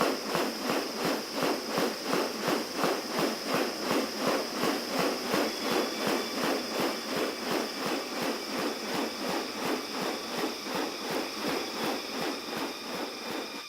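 Insect chorus: a steady high whine with a rhythmic pulsing about three times a second.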